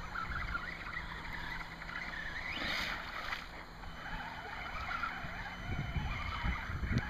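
Traxxas Summit RC truck's electric motor whining as it churns through creek water, with splashing. The motor whine rises once, about two and a half seconds in, and a run of splashes and knocks comes near the end.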